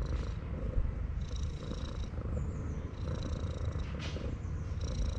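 Tabby cat purring loudly and steadily while being stroked, a contented purr.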